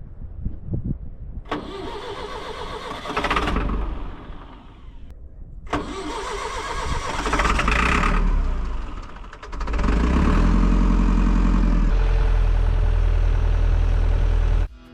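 John Deere 6230 tractor's diesel engine being cranked on the starter with starting fluid: two spells of cranking, then it catches about ten seconds in and runs steadily. It is a hard start that needed the starting fluid.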